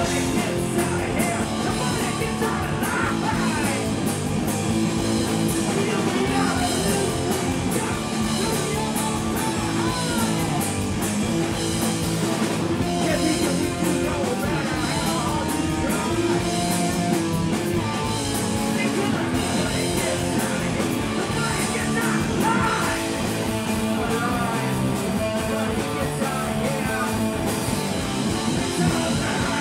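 Live punk rock band playing loud, with electric guitars and drums.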